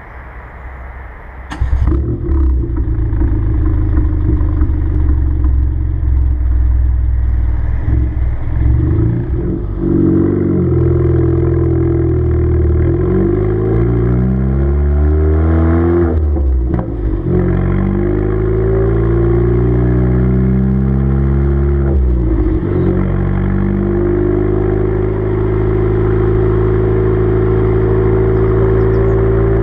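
Renault Clio mk3 engine heard at the tailpipe through a straight-through 2.5-inch stainless cat-back exhaust with no silencers. The engine starts about one and a half seconds in and idles, then is revved up slowly twice, the pitch climbing and dropping back sharply each time, before settling to a steady note.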